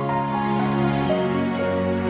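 Soft background music of held, sustained chords, the harmony shifting about a second in.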